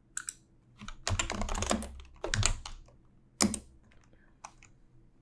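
Typing on a computer keyboard: a lone keystroke, then a quick run of keys about a second in, another short run, a hard stroke past the middle and a few light taps near the end.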